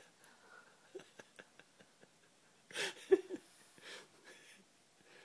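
A person's breathing close to the microphone: a sharp breathy rush just under three seconds in that ends in a brief voiced catch, a softer breath about a second later, and scattered small clicks before them.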